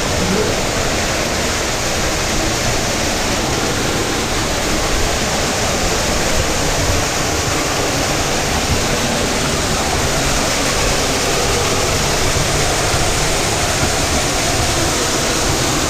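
Rushing water of a cave stream and its falls, a loud, steady rush.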